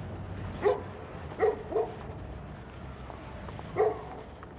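A dog barking four times: one bark, then a quick pair, then one more after a pause of about two seconds, over a steady low background hum.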